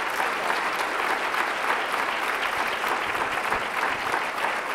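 A conference audience clapping steadily, thanking the speakers at the end of a panel.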